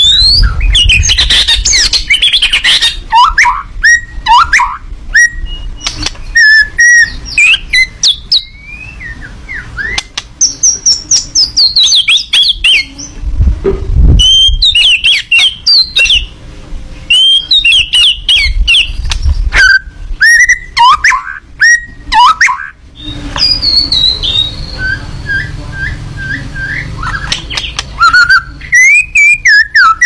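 White-rumped shama (murai batu) singing hard: a fast, varied run of loud whistled phrases that slide up and down, broken by sharp clicks and harsh notes, with a string of short repeated notes in the later part. Bursts of low rumble sit under the song at times.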